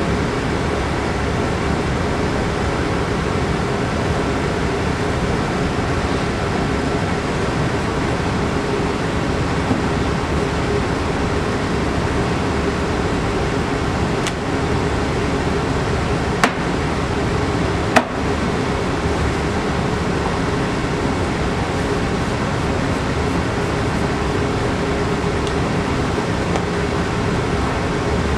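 Steady hum and hiss of a ventilation or air-conditioning fan, with three sharp clicks near the middle.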